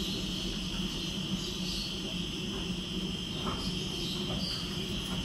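Pet shop background: a steady high-pitched trill over a low hum, with a few faint short chirps.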